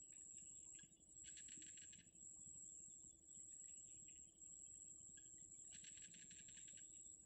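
Faint insect chirring: a steady high-pitched whine, with two short, rapidly pulsing trills, about a second in and again about six seconds in.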